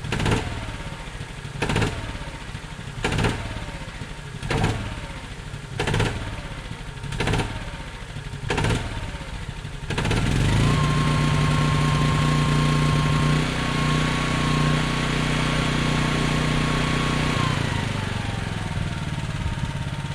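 Gasoline generator engine of a Honda 6,500-watt generator starting about halfway through and running steadily, its pitch dropping near the end. Before it, a row of sharp knocks comes about every second and a half, each trailing off in a falling tone.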